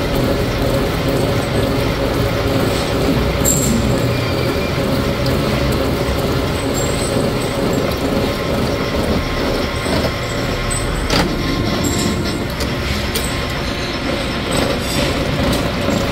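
Gear hobbing machine running steadily while its hob cuts the teeth of steel motorcycle sprocket blanks under flowing coolant: a continuous mechanical drone with a constant hum and a few sharp clicks.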